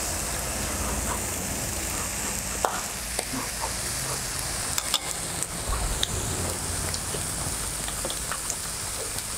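Slices of pork belly sizzling steadily on a hot tabletop grill plate, with a few light clicks of chopsticks scattered through.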